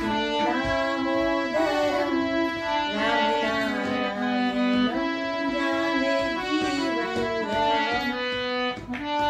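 Instrumental music: a slow melody of held notes.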